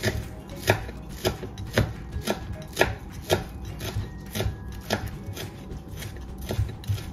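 Kitchen knife chopping green onions on a plastic cutting board: the blade knocks on the board in a steady rhythm, about two cuts a second.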